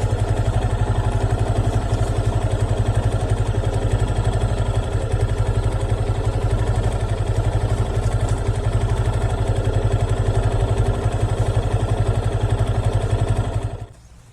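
Motorcycle engine idling steadily with an even pulsing beat, then switched off, cutting out suddenly near the end.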